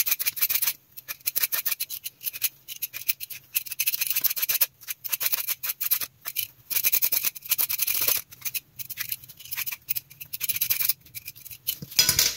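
Hand vegetable peeler scraping along a ripe mango in quick repeated strokes, in runs of a few seconds with short pauses, shaving the flesh off in ribbons. A single louder knock comes near the end.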